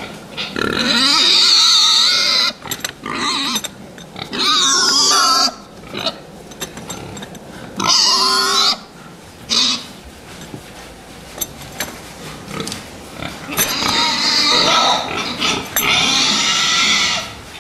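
Fattening pigs squealing: several loud, high squeals of a second or two each, the longest and loudest near the end, with quieter noises from the pen between them.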